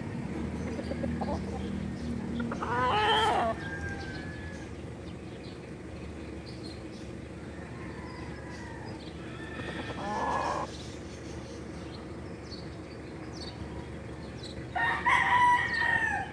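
Rooster crowing three times: short crows about 3 s in and about 10 s in, and a longer crow held at a steady pitch near the end.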